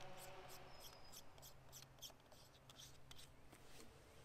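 Near silence: quiet outdoor ambience with a faint, even high-pitched ticking about three times a second that fades out near the end.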